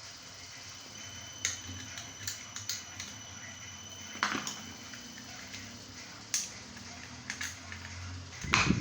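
Scattered light clicks and taps of a laptop battery pack's hard plastic casing being handled and worked open, over a steady hiss, with a louder clatter near the end.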